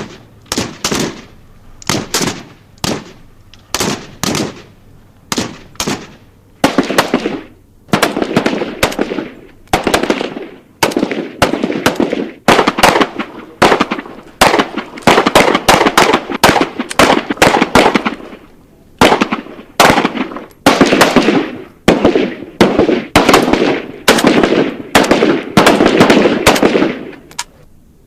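Military firearm shooting: first a string of single shots, then repeated bursts of rapid automatic fire, each lasting about a second, with short pauses between them.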